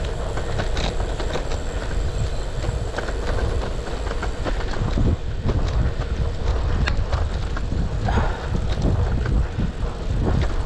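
Brompton folding bike on the move, its small tyres rumbling and crackling over gravel with scattered clicks, and wind buffeting the microphone.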